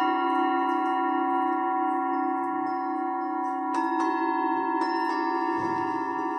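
Several Tibetan singing bowls struck with mallets, ringing on in many overlapping steady tones, the lowest tone pulsing. Two fresh strikes come in a little before four seconds and about five seconds in.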